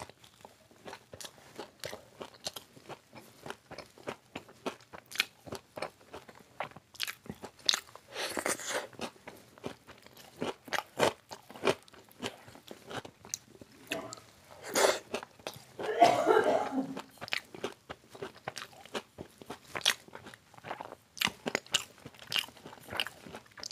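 Close-miked biting and chewing of crispy fried chicken pakora: a steady run of small crunches, with louder crunchy bites about eight seconds in and again around fifteen to seventeen seconds in.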